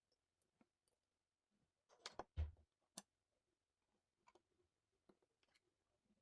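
Near silence with scattered faint clicks of small objects being handled, and a brief louder knock about two seconds in.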